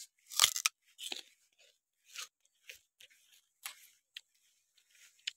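Raw sugarcane stalk being bitten and chewed: a loud crunching tear of the hard rind about half a second in, then smaller irregular crunches of chewing.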